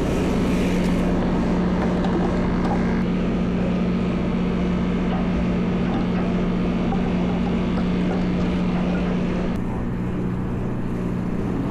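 Large party fishing boat's engine running with a steady, unchanging low hum.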